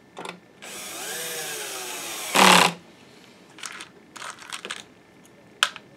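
Electric screwdriver running for under two seconds as it drives a screw into the projector's case, its motor pitch rising and then falling, ending in a loud clack about two and a half seconds in. A few light clicks and one sharp click follow near the end.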